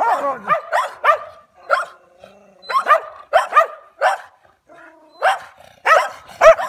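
Dogs barking, a German Shepherd and a mixed-breed dog facing off, in quick runs of sharp barks with short pauses between the runs.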